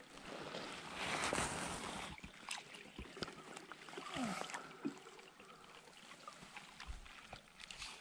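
Scattered light clicks of a lifejacket zipper knocking against a GoPro's microphone, over a soft hiss of wind and water around the boat.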